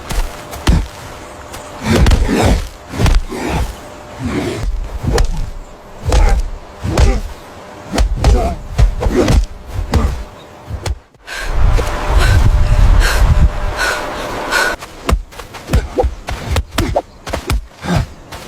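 A rapid series of heavy thumps and thuds mixed with breathy, voice-like sounds. The sound cuts out briefly about eleven seconds in, then resumes with dense low thumping.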